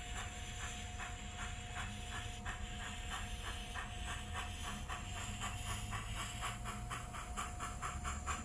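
HO-scale model of NSWGR C38 class steam locomotive 3820, its Loksound 5 sound decoder playing steam exhaust chuffs through the onboard speaker over a steady hiss. The chuffs quicken as the locomotive gathers speed, from about four a second to about six.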